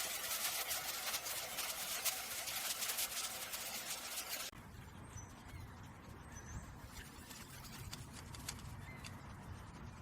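A dense crackling hiss cuts off sharply about four and a half seconds in. It gives way to quieter ambience with a low rumble and a few faint, short bird chirps.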